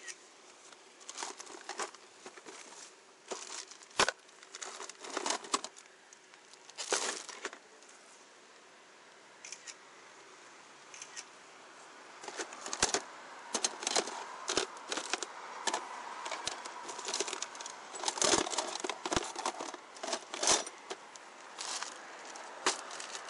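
Plastic bags and belongings being rummaged through close by, crinkling and rustling in irregular bursts with a few sharp knocks and clicks.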